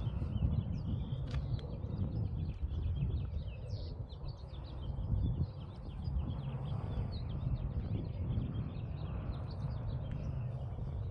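Small birds chirping and twittering in quick, repeated short notes, over a steady low rumble of wind on the microphone.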